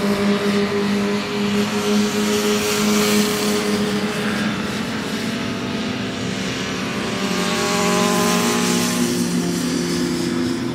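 Racing motorcycle engines running at speed, with more than one engine note overlapping. One bike's note gives way to another's about halfway through.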